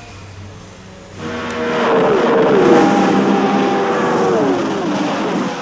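A racing car engine starts up sharply about a second in and runs loud. Its pitch falls twice.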